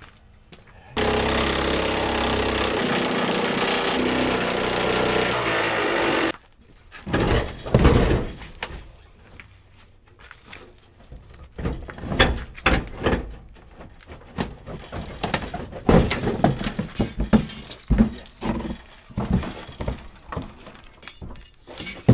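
A loud, steady mechanical noise for about five seconds that starts and stops abruptly, then a run of irregular metal clanks and knocks as a pickup truck's steel front fender is worked loose and lifted off.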